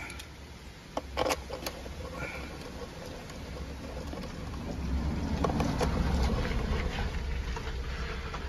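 A small 5/16 socket driver clicking against metal as a screw on an engine's spark-plug cover is tightened by hand, with a few sharp clicks about a second in. A low rumble swells in the middle and eases off toward the end.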